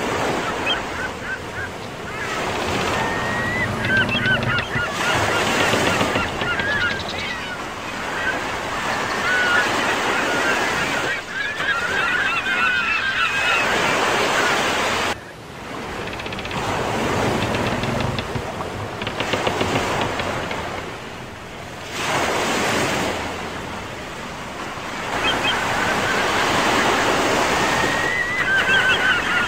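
Sea waves washing on a shore, with birds calling in clusters over the surf a few seconds in, around the middle and near the end.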